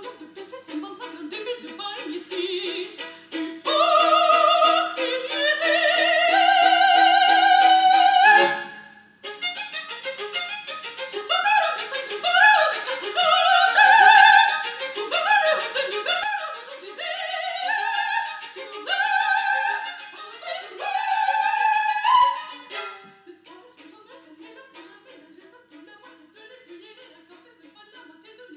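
Recording of a high operatic voice singing with vibrato over a string accompaniment. The voice holds long notes at first, then moves through a phrase of shorter, clearly separated syllables, and the accompaniment carries on alone near the end.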